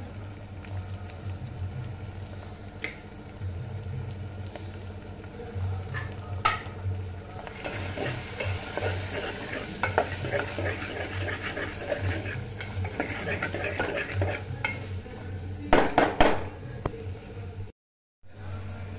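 A spoon stirring cluster beans and onions frying in an aluminium pressure cooker, with scraping and sizzling loudest in the middle, over a low steady hum. A few loud knocks of metal on metal come near the end, then the sound cuts out briefly.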